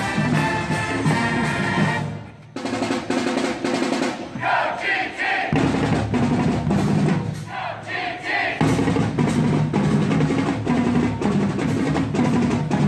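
Marching band playing: brass (trumpets and sousaphones) over a drum line. The band members shout together twice, about five and eight seconds in.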